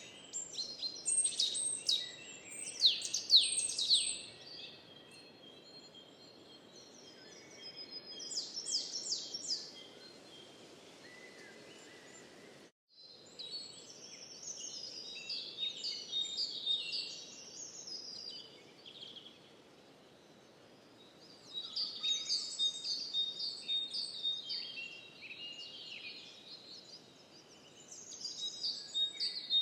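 Songbirds singing and chirping in repeated bursts of quick high trills and notes, over a faint steady background hiss. The sound cuts out for an instant about thirteen seconds in.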